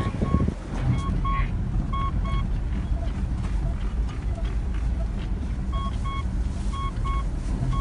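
A vehicle driving slowly across rough pasture, heard from inside the cab as a steady low rumble of engine and tyres. A pair of short beeps at one pitch repeats about once a second for the first couple of seconds and again near the end.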